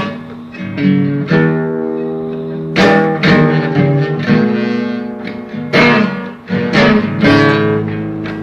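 Guitar intro of a blues song: strummed, ringing chords with no singing.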